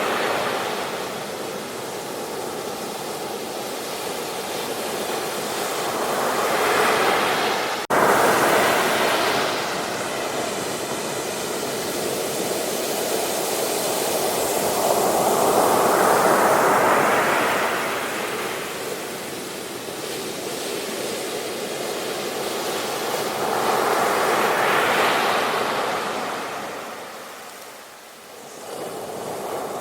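Ocean waves breaking and washing in, the surf swelling and fading about every nine seconds. A brief sharp dropout about eight seconds in breaks the sound.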